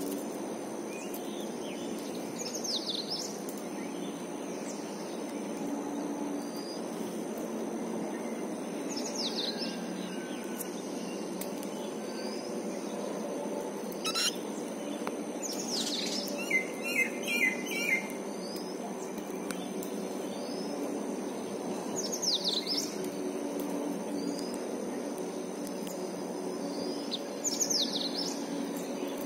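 Bird calls: a sharp down-slurred call repeated about every five to six seconds, with a quick run of louder chirps about halfway through, over a steady low background hum.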